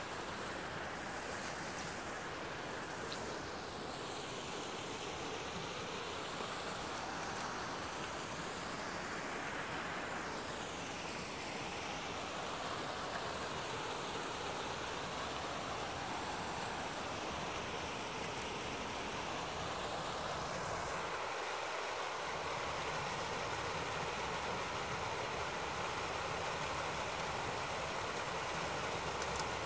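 Small woodland stream running over rocks in a little cascade: a steady rushing of water with no breaks.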